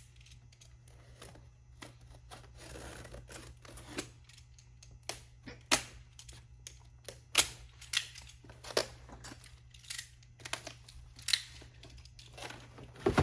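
Cardboard box and packaging being opened by hand: tearing, crinkling and a string of sharp irregular snaps and crackles.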